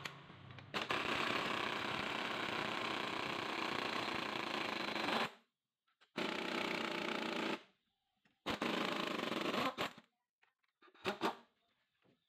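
A fast mechanical rattle in three bursts, the first about four and a half seconds long and the other two about a second and a half each, each starting and stopping abruptly, followed by a few light clicks.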